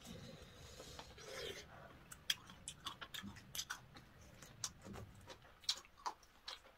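Faint eating sounds: irregular small clicks and smacks of chewing and chopsticks as two people eat braised chicken.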